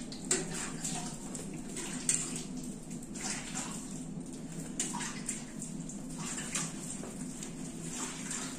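Milk squirting from a Sindhi-Jersey cross cow's teats into a pail during hand milking: a rhythmic run of short hissing squirts, one or two a second, one per squeeze.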